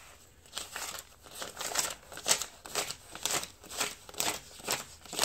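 Paper dollar bills being counted by hand one at a time, each bill giving a short crisp rustle, about three a second.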